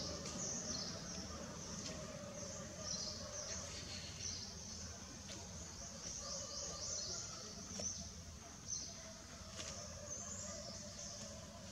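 Outdoor ambience: quick runs of high-pitched chirping repeat throughout over a low, steady background rumble, with a few faint clicks.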